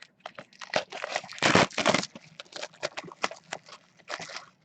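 A sealed box of hockey cards being handled and opened: a run of taps and clicks, with a louder scraping rustle of cardboard and wrapping about a second and a half in.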